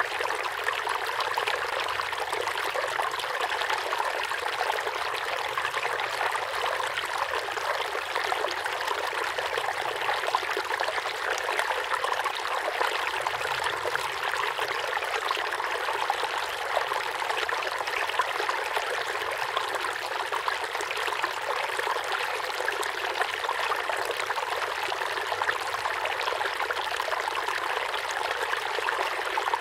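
Running water trickling and splashing steadily, without a break.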